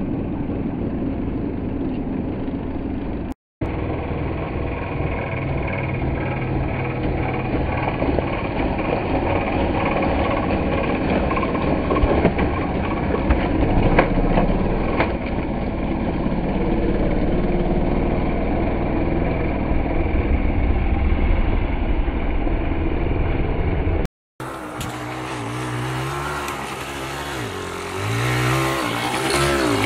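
Small Suzuki dirt bike engine running under throttle as it is ridden, revving up and down. The sound breaks off abruptly twice, about three seconds in and again past twenty seconds, and the revs rise and fall more plainly near the end.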